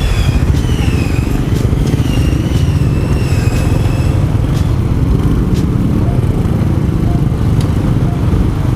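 Honda XRM 125 Dual Sport's single-cylinder engine running steadily on the move, under a steady low rumble of wind and road noise. A thin wavering high tone sounds over it for the first few seconds.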